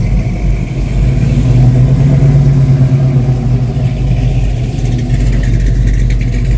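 Classic Chevy pickup truck engines running steadily with a low, even drone.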